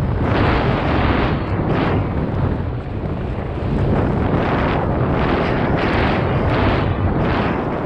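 Wind buffeting a helmet-mounted GoPro's microphone on a mountain bike moving at speed, a heavy steady rush with surges about every two-thirds of a second.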